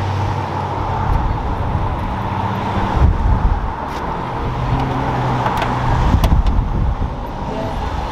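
Road traffic going by: passing vehicles' engine hum comes and goes under a steady noise bed, with a few sharp clicks about four and six seconds in.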